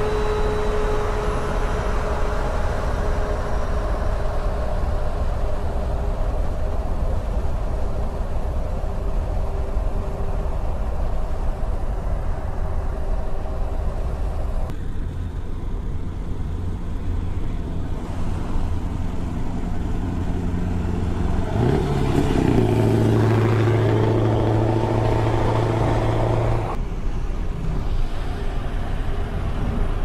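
Scania 164L 580 V8 truck running along the highway with steady road and wind rumble. About two-thirds of the way through, a louder, steady low-pitched sound with several tones comes in for about four seconds and stops abruptly.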